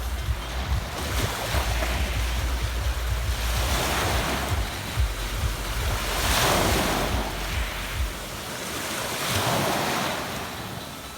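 Sea waves washing onto a pebble beach, the rush swelling and falling away every few seconds. Gusts of wind buffet the microphone with a low rumble that eases off near the end.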